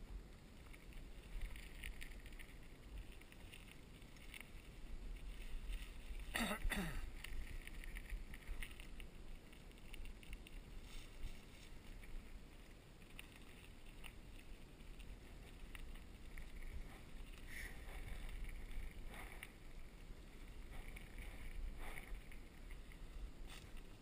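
Cannondale bicycle rolling along a leaf-covered dirt trail: a steady low rumble of tyres and wind on the camera's microphone, with scattered rattles and knocks over bumps and a louder clatter about six and a half seconds in.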